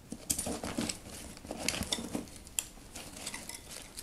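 Handling noise as a small FPV quadcopter is fitted into the strap on the front of a backpack: irregular light clicks and knocks of the quad against the bag, with fabric rustling.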